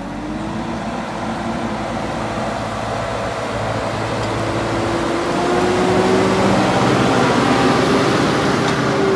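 Tractor diesel engine revving up at the start, then running steadily under load and growing gradually louder.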